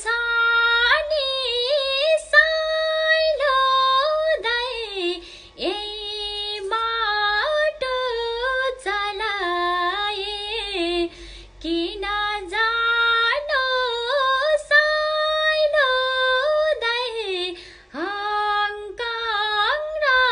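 A woman singing a Nepali song solo and unaccompanied, a single melodic line of long held notes with wavering ornaments, with short breaths between phrases.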